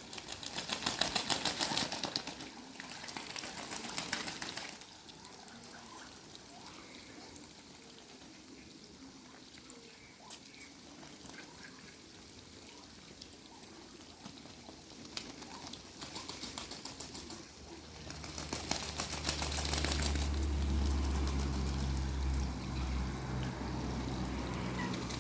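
Birds splashing and beating their wings in water, in two quick, rapid bouts: one at the start and one about three-quarters through. A low steady hum comes in alongside the second bout and continues.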